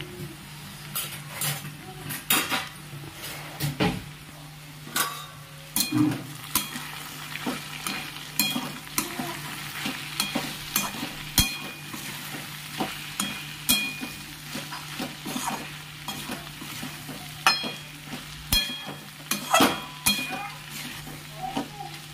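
A spatula stirring and scraping okra and fried potato pieces with spices in a pan, knocking sharply against the pan at irregular moments, over a light sizzle of frying.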